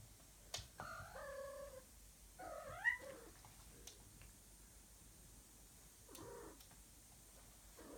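Female cat in heat calling: a drawn-out mew about a second in, then a louder call that rises in pitch, and two fainter calls later on.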